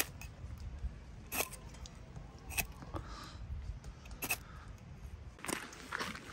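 A few sharp clicks about a second apart over a low steady rumble, from paper and small objects being handled on gravel. Near the end come crunching footsteps on gravel.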